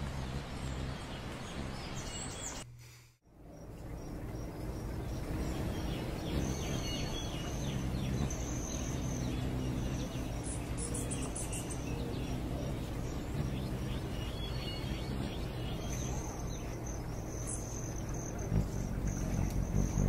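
Birds chirping with repeated high trills over a steady background of outdoor ambience. The sound fades out to silence for a moment about three seconds in, then comes back.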